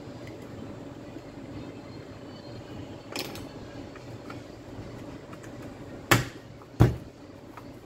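Hard plastic knocks from handling a Makita cordless drill's split housing as its halves are fitted together over the motor and gearbox: a soft knock about three seconds in, then two loud, sharp knocks less than a second apart near the end, over a steady low background noise.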